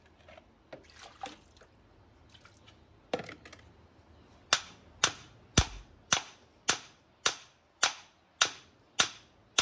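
Small hammer driving an earth ground rod into wet ground. A few light knocks come first; then, about halfway through, a steady run of sharp metal-on-metal blows begins, nearly two a second, each ringing briefly.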